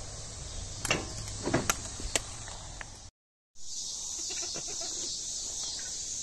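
Steady high buzz of insects, such as crickets, with a few sharp clicks and snaps in the first half. The sound cuts out completely for about half a second a little past the middle.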